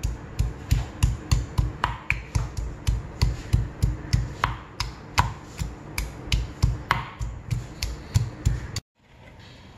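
Stone pestle pounding garlic cloves in a stone mortar, about three dull thuds a second with sharp clicks of stone on stone, cut off suddenly near the end.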